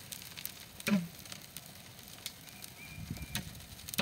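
Pile of dry brush and branches burning, with scattered crackles and snaps from the fire and a louder snap about a second in.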